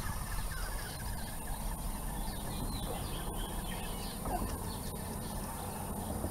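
Birds chirping in short repeated calls over a steady low rumble.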